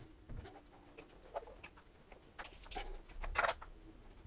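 Light knocks and scrapes of a stainless-steel conical fermenter being handled and shifted on a tabletop. The clicks come irregularly, and the loudest comes near the end.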